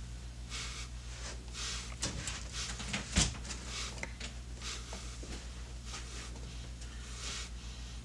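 A woman's shaky, sobbing breaths, one after another, with a single sharp knock about three seconds in, over a steady low hum.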